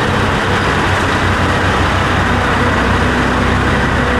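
A steady engine hum with a constant loud noise over it, without letup, like a motor vehicle running.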